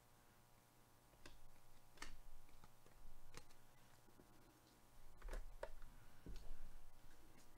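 A handful of faint, scattered clicks and taps from trading cards and foil packs being handled.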